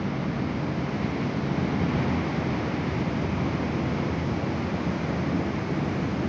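Steady roar of rough ocean surf breaking on the beach, mixed with wind buffeting the microphone.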